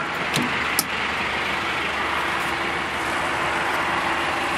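The latch of a GAZ Gazelle minibus door clicks twice in the first second as its handle is pulled and the door opened, over a steady hum.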